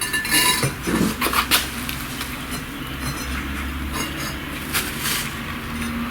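Bricklaying work: a trowel and bricks clinking and scraping in quick hard strikes, most of them in the first second and a half, with a few more about five seconds in, over a low steady hum.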